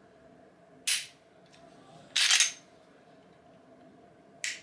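Dry-fire clicks of a Mossberg MC2C 9mm striker-fired pistol's trigger and action during a trigger-reset demonstration. There is a sharp click about a second in, a longer, louder click just after two seconds, and another short click near the end.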